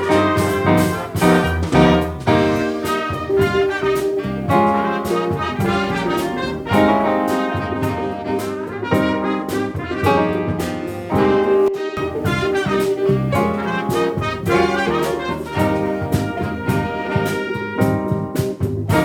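Jazz big band playing live: a horn section of saxophones, trumpets and trombones sounds chords over the drums and rhythm section.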